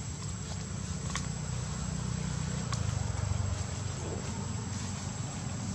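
Outdoor forest ambience: a steady low rumble with a thin continuous high whine over it, and two faint sharp clicks about a second and a half apart.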